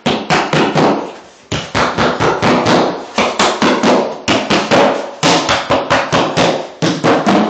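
Rapid hammer blows driving nails into a wall, about four to five strikes a second, in three runs with brief pauses.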